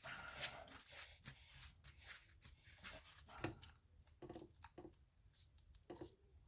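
Near silence, with faint scattered clicks and rubbing from handling a paintball marker as its compressed-air tank is fitted.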